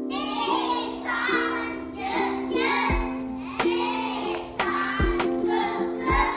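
Children's song: a child's voice singing over a steady instrumental backing, with drum beats coming in about halfway through.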